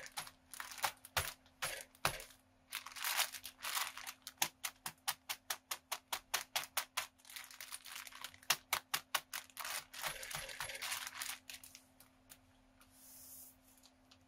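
Plastic mushroom grow bag full of grain being shaken and kneaded by hand to mix in freshly injected liquid culture: rapid rattling clicks of the grain, about four a second, with the plastic crinkling, thinning out after about twelve seconds.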